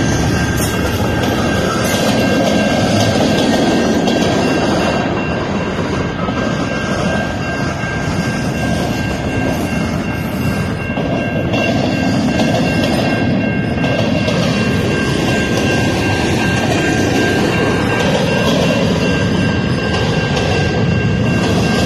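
Freight train cars rolling slowly past a grade crossing: a steady rumble with two steady high tones running through it.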